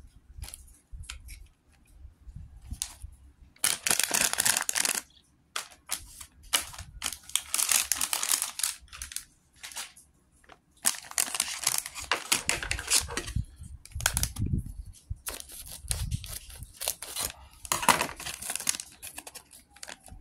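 A LEGO minifigure blind bag being torn open and its packaging crinkled by hand, in several separate bursts of rustling with short pauses between.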